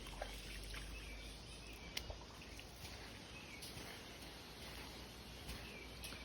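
A bird chirping repeatedly, short calls about once a second, over a steady outdoor hiss, with a couple of sharp clicks near the start and about two seconds in.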